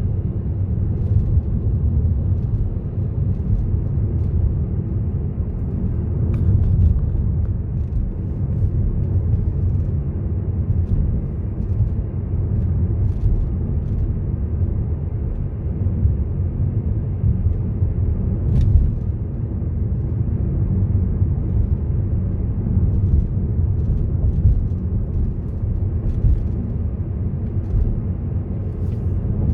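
Steady low rumble of a car driving along a road, engine and tyre noise, with a few faint ticks.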